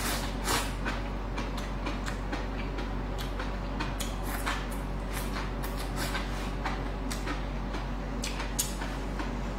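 Close-miked eating sounds of a person slurping and chewing noodles: a steady string of wet mouth clicks and smacks over a low hum.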